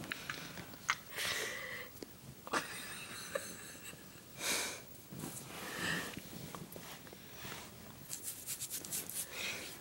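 Close-up breathy puffs of a person breathing, about five separate hissing breaths, the strongest about halfway through, with a quick run of faint clicks near the end.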